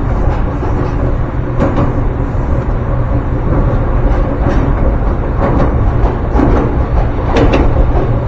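Ryutetsu Nagareyama Line electric train running, a steady low rumble with a few sharp clicks a few seconds apart.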